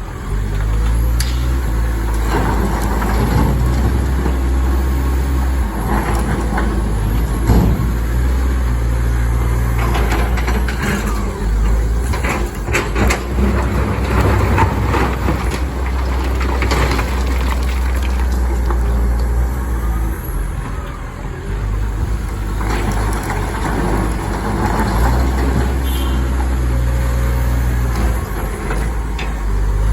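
Komatsu excavator's diesel engine running under load, with rock clattering and knocking at irregular intervals as it is loaded.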